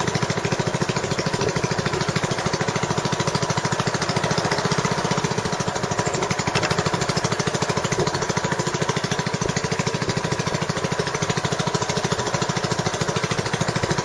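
A small tour boat's engine running steadily under way, a rapid, even beat that does not change.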